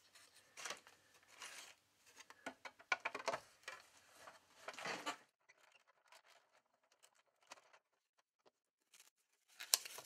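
Cardboard and a Sizzix birdhouse die being run through a die-cutting machine: bursts of crunching and scraping for about five seconds, then a few faint clicks and a sharp click near the end.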